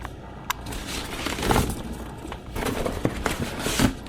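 Cardboard and foam packing being handled and rustled while a computer is unpacked from its box, with a sharp click about half a second in.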